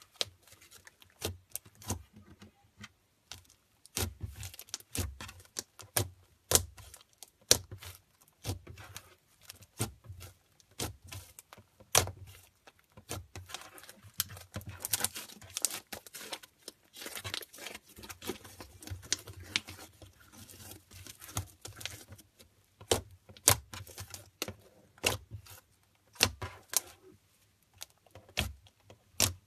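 Hands squishing, stretching and poking fluffy pink slime, giving an irregular run of sharp sticky clicks and pops, with softer crackling between them through the middle.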